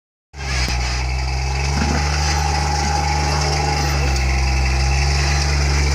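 Jeep engine idling steadily, an even low drone with no revving.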